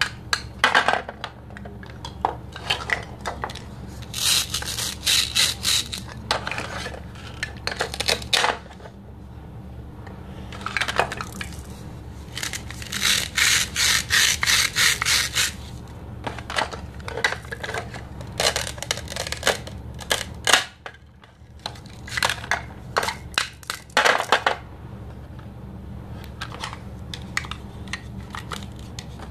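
Hard plastic toy fruit and vegetable pieces clicking and knocking together as they are handled, with two longer stretches of rapid crackling, one about four seconds in and one about thirteen seconds in. A low steady hum lies underneath.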